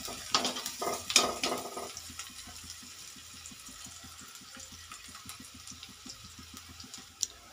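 Sliced onions frying in oil in a metal kadhai, stirred with a metal spatula that scrapes and knocks against the pan a few times in the first two seconds, loudest about a second in. After that the stirring stops and only a faint, steady sizzle of the frying onions is left.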